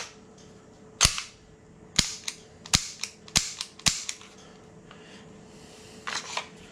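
Sharp metallic clicks and clacks of an unloaded Umarex H&K USP gas-blowback airsoft pistol being worked by hand, its slide and controls operated. There are about eight clicks in quick succession, then a short cluster of them near the end.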